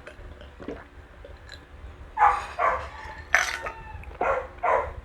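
A dog barking about five times in quick succession, starting about two seconds in.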